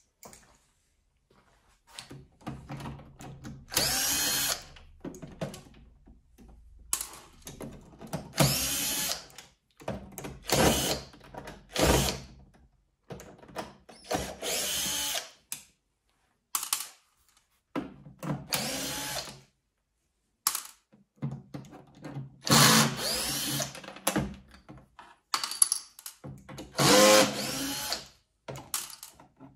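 Cordless electric screwdriver running in about ten short bursts of a second or so, with brief pauses between them, as it backs out the screws of a coffee machine's plastic casing.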